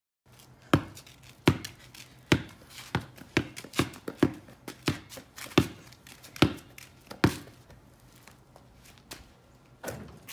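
Basketball dribbled on a concrete driveway: sharp bounces at a steady pace of about one every three quarters of a second, then fewer and fainter knocks after about seven seconds.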